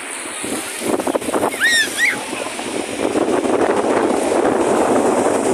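Sea surf breaking and washing in over a shallow sandy beach, with wind on the microphone. About two seconds in, two short high-pitched cries sound over the wash.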